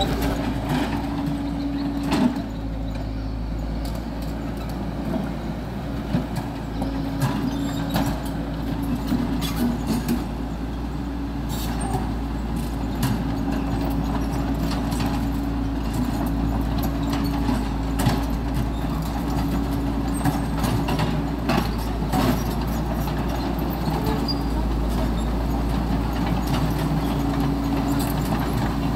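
Caterpillar excavator's diesel engine running steadily, with scattered knocks and clanks as the bucket works at broken fence concrete.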